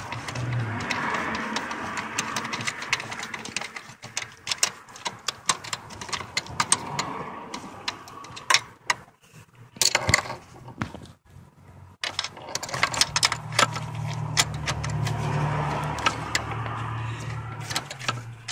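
Socket ratchet clicking in rapid runs as the bolts of a car's clutch pedal bracket are turned, with a short lull a little past the middle.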